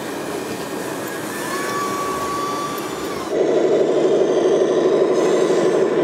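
Radio-controlled scale construction models working: a thin steady electric whine, typical of a model's hydraulic pump, rises slightly and holds for about a second and a half. About three seconds in, a louder steady mechanical drone with a fast flutter abruptly takes over.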